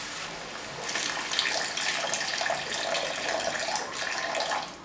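A stream of water poured into a hot karahi, splashing into onion-spice paste fried in mustard oil until the oil has separated. The pour starts about a second in and stops abruptly near the end.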